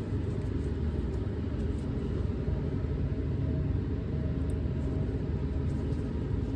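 Steady low hum and rumble of background room noise, with a few faint ticks.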